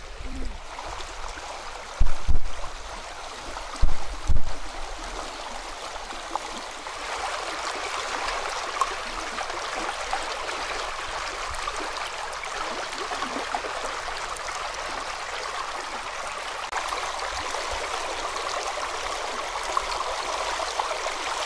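River water rushing and rippling over a piled-stone fish-trap wall, a steady running-water sound that grows a little louder after about seven seconds. Two pairs of short, low thumps come in the first five seconds.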